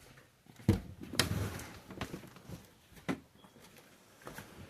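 A few scattered knocks and clicks, the sharpest about a second in and again about three seconds in.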